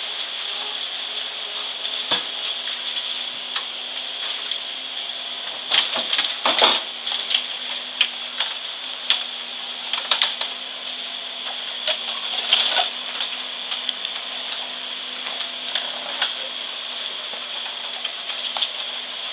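Mini excavator running with a steady high whine and hum, with scattered metallic clanks and knocks; the loudest cluster comes about six to seven seconds in.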